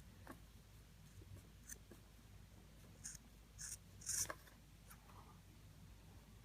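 Quiet hand-work on a paracord bracelet: faint handling clicks, with a few short scratchy rasps clustered around the middle.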